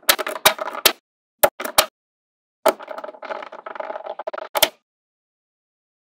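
Small magnetic balls clicking and clattering together as they snap into place: sharp single clicks and short rattling runs with a slight metallic ring, stopping about a second before the end.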